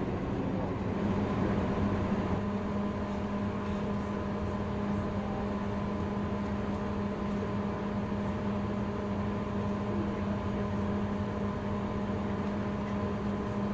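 Inside a MÁV InterCity passenger carriage on the move: a steady running rumble with a constant low hum.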